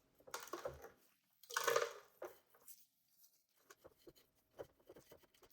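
Hands pulling apart a clump of small cacti and their dry potting mix: two short bursts of crunching and rustling, the second the louder, then scattered light clicks and crackles.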